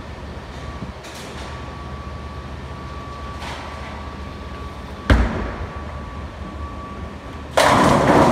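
Bowling alley sounds over a steady low rumble. A sharp thud about five seconds in, then a loud crash of pins near the end.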